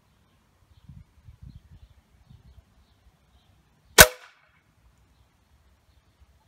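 A single shot from a Steyr Challenge E pre-charged air rifle about four seconds in, the pellet smacking into the metal pellet trap behind the paper target. It gives one sharp crack with a brief metallic ring.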